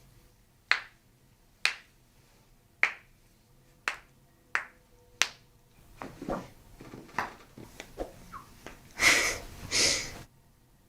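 A run of six sharp, isolated clicks about a second apart, followed by softer scattered ticks and rustling, then two longer hissing bursts near the end.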